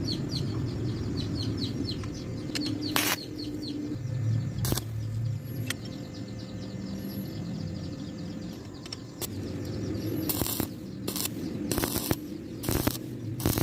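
A small bird chirps repeatedly over a steady low rumble. Near the end comes a series of short, harsh noise bursts.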